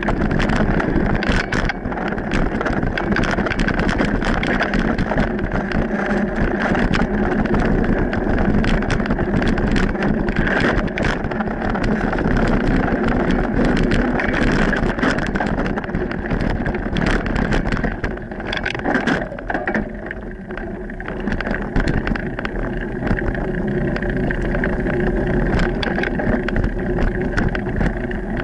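Mountain bike rolling along a dirt singletrack: a steady rumble of tyres on the trail and rattle of the bike, full of small knocks and clicks from the bumps. It eases briefly about two-thirds of the way through.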